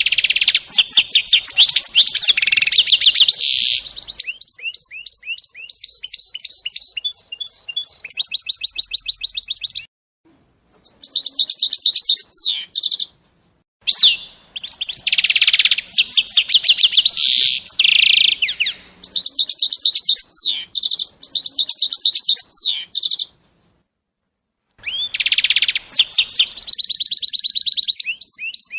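A small songbird singing loudly: long bouts of rapid, high trills and chirps, broken by short pauses about ten, thirteen and twenty-four seconds in.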